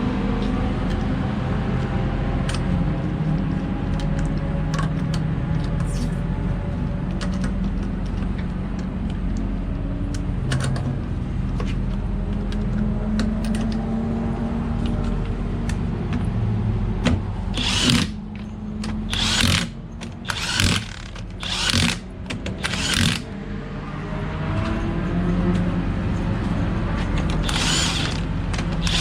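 Power impact wrench running wheel lug nuts in a tire swap, in about five short bursts in the second half and again near the end. Under it runs a steady engine drone whose pitch slowly wanders.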